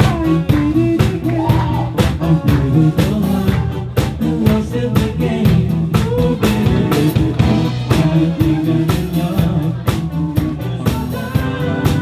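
Live rock band playing: electric guitar and drum kit with a steady beat, and a man singing into the microphone.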